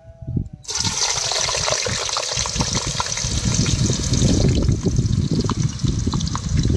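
Thick-cut potato sticks dropped into hot oil for deep-frying, sizzling hard with a steady stream of crackles; the sizzle starts suddenly about a second in as the potatoes hit the oil.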